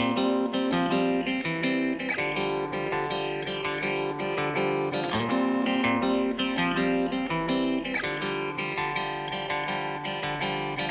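Background music led by plucked guitar, with quick picked notes over steady chords.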